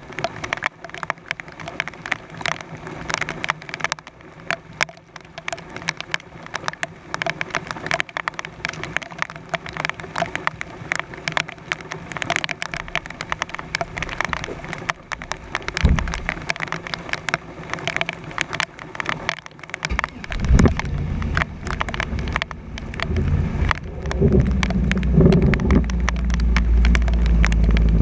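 Heavy rain on a GoPro's waterproof housing: a dense, uneven patter of drop hits. About twenty seconds in, a low rumble starts and grows louder.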